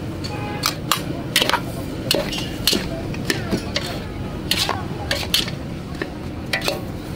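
A metal spatula scraping and clanking against a large steel wok as a big batch of fried rice is stirred and tossed. The sharp strokes come irregularly, about every half second.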